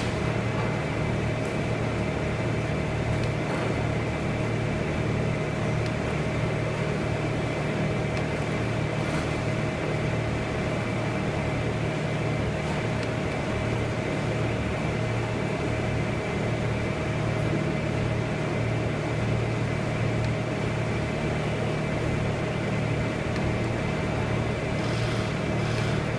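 A steady, unchanging machine hum: a low drone with a couple of thin, steady whining tones above it and a constant hiss.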